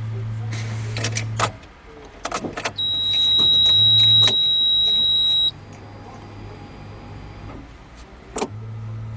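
A newly fitted auxiliary electric heater circulation pump of a UAZ Patriot, running dry without coolant, with a steady low electric hum. The hum stops about a second and a half in among a few clicks and comes back near the end. In between there is a loud, steady high-pitched whine for about three seconds.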